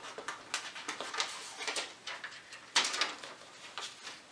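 Tissue paper crinkling and rustling as a silk pocket square is unwrapped and drawn out of its gift box, in a string of short rustles with the loudest about three seconds in.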